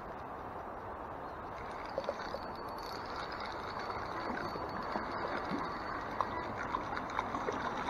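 Steady rush and gurgle of flowing stream water, with a few faint short ticks and small splashes scattered through.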